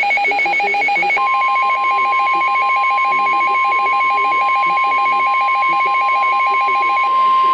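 Electronic alert tones of an Emergency Alert System weather warning: a rapidly pulsing, warbling tone like a telephone ring, joined about a second in by a steady single-pitch alarm tone. The pulsing stops near the end while the steady tone carries on.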